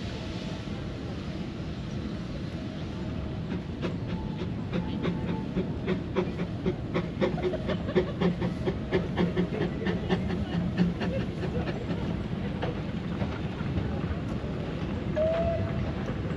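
Narrow-gauge steam train running past, a quick rhythmic clatter that builds up and fades away over about ten seconds. A brief squeal near the end.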